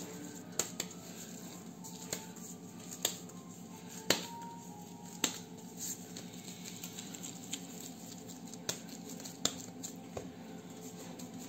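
Plastic-gloved hands patting and rounding a ball of pizza dough, with scattered sharp clicks and crinkles from the gloves and dough, over a steady low hum.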